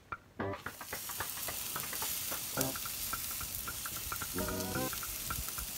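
Asparagus spears and a bone-in leg of lamb sizzling on a barbecue grill's grates: a steady hiss with fine crackling that starts about a second in.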